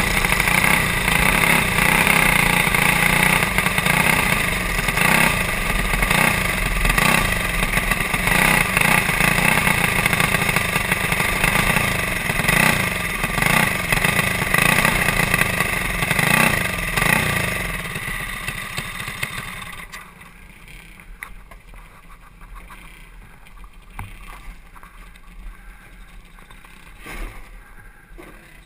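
Go-kart's Honda GX200-type clone single-cylinder four-stroke engine running loud at speed, heard from on board. After about 17 seconds the engine sound dies away over a couple of seconds, leaving only a low background with a few faint knocks.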